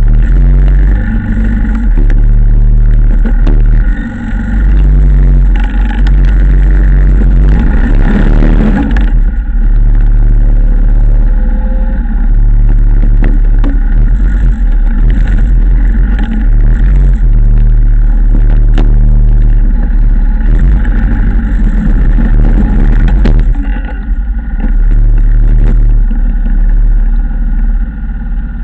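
2007 Yamaha Wolverine ATV's engine running and being throttled up and down in repeated bursts while it pushes snow with a front plow blade, heard as a heavy rumble through a camera mounted on the machine.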